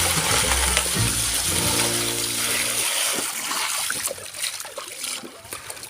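Water running and splashing over a plastic toy vehicle as it is washed, easing off about halfway through to a few scattered splashes.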